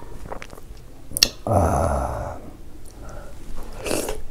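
Close-miked mouth sounds of a man eating soft buckwheat dhido by hand: a sharp click, then a louder mouth sound lasting about a second. A wet bite comes near the end as another handful goes into his mouth.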